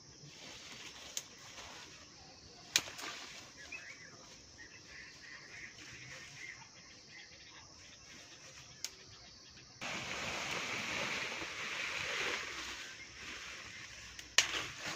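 Leafy branches and vines rustling as they are pulled and pressed onto a stick-frame shelter, with a few sharp twig snaps, over a steady insect buzz. The rustling grows much louder about ten seconds in and settles near the end.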